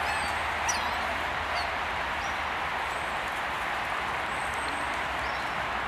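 Steady outdoor background hiss over a low rumble, with several short, high chirps from small birds.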